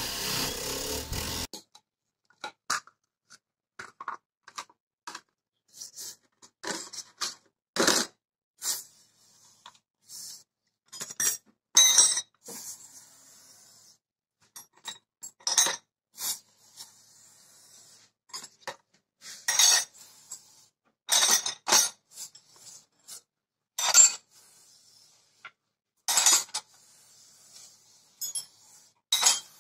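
A bench grinder's wire wheel runs briefly and stops abruptly about a second and a half in. Then steel auger drill bits clink and clatter irregularly against one another as they are handled and laid into a cut-open plastic bottle.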